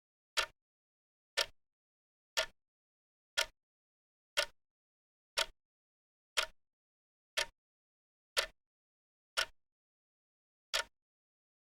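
Clock ticking sound effect: a short, sharp tick about once a second, with nothing heard between the ticks.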